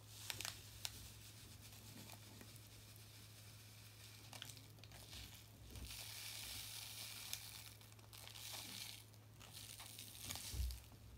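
Faint crinkling of a small plastic sachet and a soft, steady hiss of bouncy-ball crystals being poured into a plastic ball mould, lasting about three seconds from roughly six seconds in, with a few light clicks.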